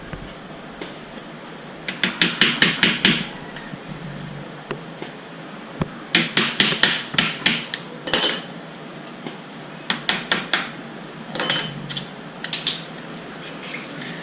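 Rapid metal-on-metal tapping in several bursts of quick strikes: a hand tool working on the metal lock tabs of a car radiator to open it. The first burst comes about two seconds in, a longer one around the middle, and shorter ones near the end.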